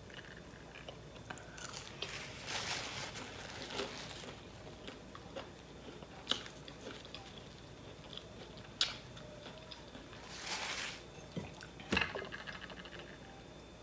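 Close-miked eating: biting and chewing food, with paper napkin rustling against the face and a few sharp clicks, the last one near the end.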